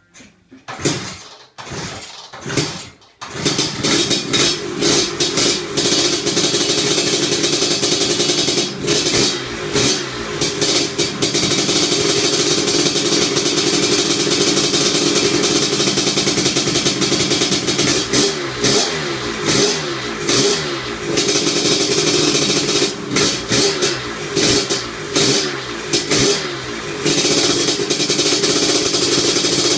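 Lambretta scooter engine with a TS1 225 two-stroke single-cylinder kit starting for the first time: it fires a few times, catches about three seconds in and runs steadily. In the second half the throttle is blipped, the revs rising and falling repeatedly.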